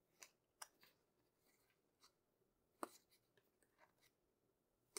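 Near silence, with a few faint short clicks and rubs of trading cards being handled and slid against one another.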